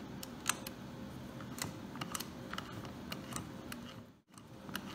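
Scattered light clicks from a Mosler combination lock as its dial is turned and the lock is handled.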